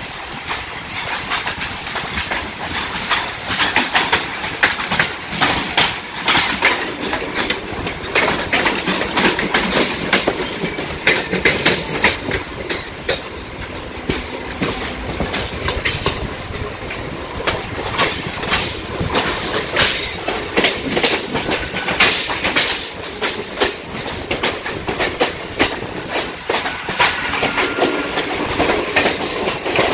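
Central Railway suburban electric multiple-unit local trains running, with their wheels clattering over rail joints and points in many sharp, irregular clicks above a steady rumble.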